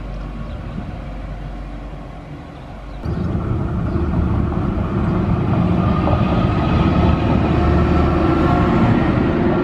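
Stadler GTW 2/6 diesel railcars: first a quieter train sound as one pulls away, then from about three seconds in a louder, steady rumble of another running past close by, its engine and wheels on the rails.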